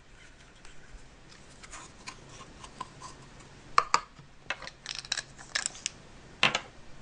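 Hands handling plastic Play-Doh toy pieces and dough: scattered light clicks and taps, with two sharper clicks about four seconds in and near the end.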